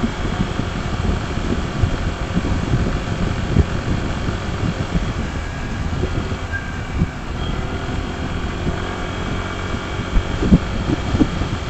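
Wind buffeting the microphone on a moving Honda ADV160 scooter, with the scooter's single-cylinder engine running steadily underneath.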